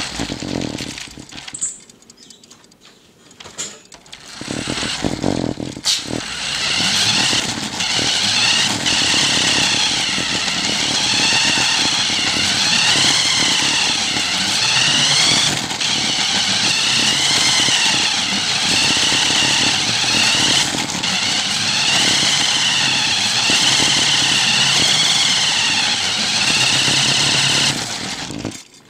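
Small electric motor of a cheap RC buggy whining as the buggy spins donuts. The pitch rises and falls over and over. It starts after a short pause and cuts off near the end.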